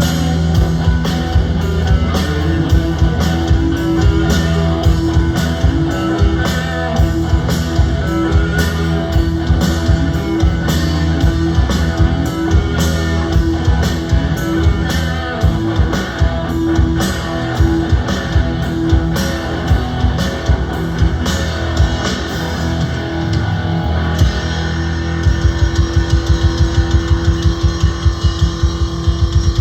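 Live rock band with electric guitar and drum kit playing. Near the end the drums go into a fast, even run of beats.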